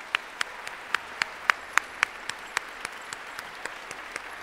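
Audience applauding, with one nearby clapper's sharp claps standing out at a steady pace of nearly four a second.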